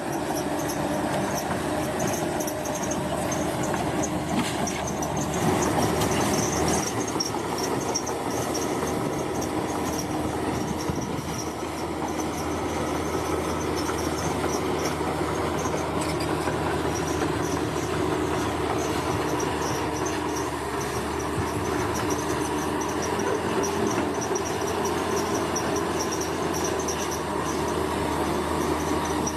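Large bulldozer's diesel engine running steadily while working, with a continuous high-pitched squeal over it.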